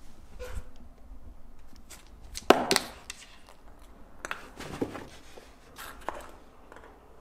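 A few short, sharp knocks and clicks, the loudest a pair about two and a half seconds in, with quieter ones later, over quiet room tone.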